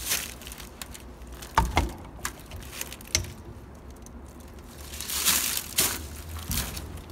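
A rag rubbed over a pickup's rear window glass, then a few sharp knocks and clicks as a suction-cup glass lifter is pressed onto the glass, with more rustling near the end.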